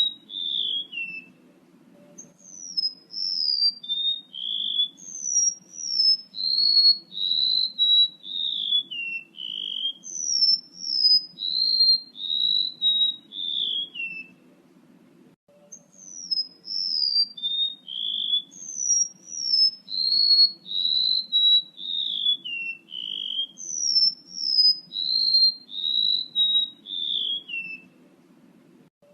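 Song of a male golden-bellied gerygone (remetuk laut): a long series of high, sweet whistled notes, each group sliding downward in pitch. The series repeats in two long bouts with a short pause about halfway.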